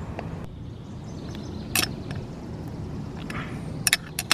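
A few sharp metallic clicks of a wrench on the bolts of a steel antenna-mast base, one about two seconds in and a quick pair near the end, over a steady low background rumble.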